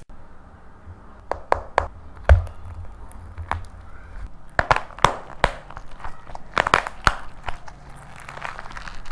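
Dried painted plaster clay cracking and crunching as it is crushed by hand: an irregular series of sharp snaps, the loudest a little over two seconds in, with quicker runs of crackling later.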